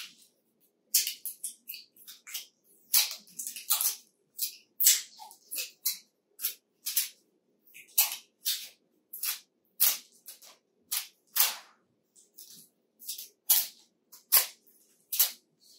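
Thin plastic wrapping crinkling and crackling in quick irregular bursts as it is pulled and unwound from a toy.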